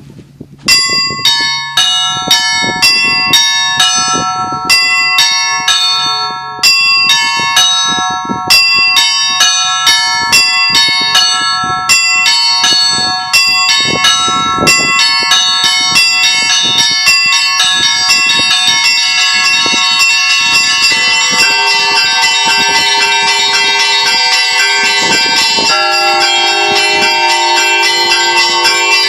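Russian Orthodox church bells rung as the evening ringing after a service. The ringing starts about a second in with quick, separate strikes on the higher bells and builds into a dense, continuous peal as lower bells join in the second half.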